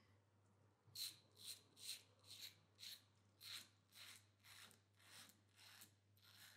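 Mercur Progress 500 adjustable safety razor with a Mercur Platinum blade scraping stubble through shaving lather. It makes short, faint rasping strokes, about two a second, starting about a second in.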